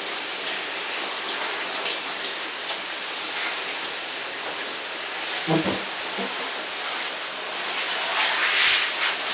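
Shower running: a steady spray of water hissing down in a small bathroom, a little louder near the end.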